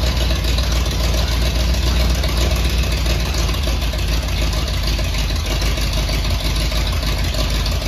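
1950 Ford F1's flathead V8 running steadily and loudly with open exhaust and no muffler.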